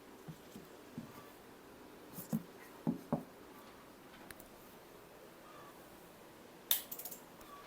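A few soft knocks and taps of handling, then one sharp click with a short rattle near the end, as the cooling-fan unit and its power cord are handled for switching on.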